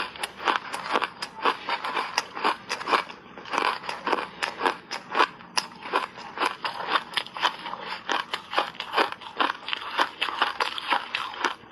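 A person biting and chewing refrozen shaved ice: dense, irregular crunching and crackling, several sharp cracks a second.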